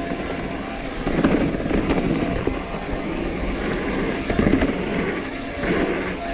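Mountain bike riding over a rough dirt trail: tyres crunching and the bike rattling and clattering over bumps and rocks.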